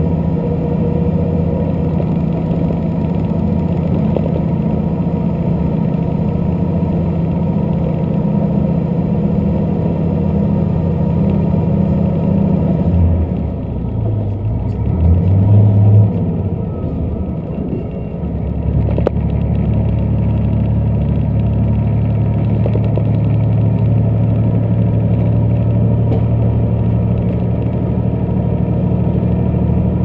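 Diesel express train running, heard from inside the passenger car: a steady low drone of engine and running noise. About halfway through it dips and changes pitch, with a brief louder hum, then settles into a steady, lower-pitched drone.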